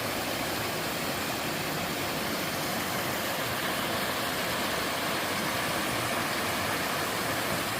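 Two-tier waterfall in a mountain stream: a steady rush of falling water.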